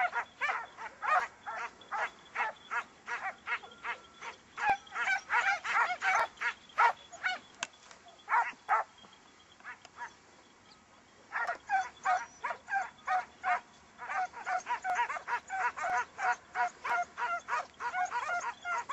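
A pack of scent hounds in full cry on a hare's trail: fast, repeated high yelping bays, about two to three a second, with a pause of about two seconds midway.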